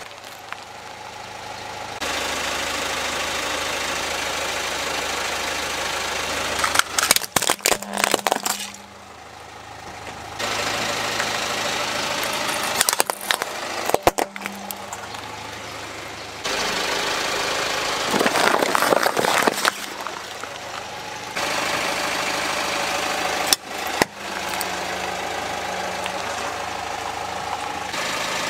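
Car engine idling while a tyre rolls over small plastic toys on concrete, cracking and crunching them in several short bursts of snapping plastic, the loudest a drawn-out crunch a little past the middle.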